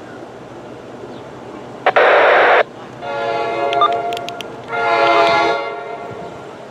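An approaching NJ Transit train's air horn sounds in blasts: a harsh, loud one about two seconds in, then two longer chord blasts, the last fading away.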